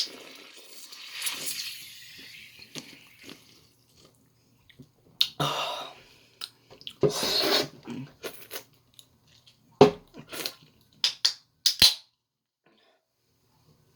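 A shaken can of soda fizzing and hissing after being cracked open, the hiss fading over about three seconds. Then come a few separate short noisy bursts and several sharp clicks, loudest a little under ten seconds in.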